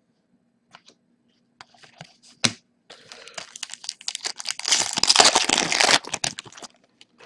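Hand-opened Upper Deck hockey card pack: its plastic wrapper is torn and crinkled, the crinkling loudest about five seconds in. A single sharp click comes about two and a half seconds in.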